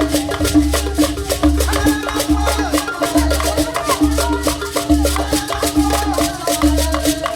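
Traditional dance music with a steady beat: fast, even percussion strokes over a repeating bass pulse, with a held low note and melodic lines on top.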